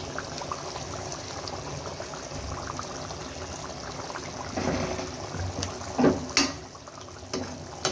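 Thick tomato-and-yogurt chicken gravy bubbling in a wok, a steady fine bubbling and spluttering, with a couple of louder pops about six seconds in.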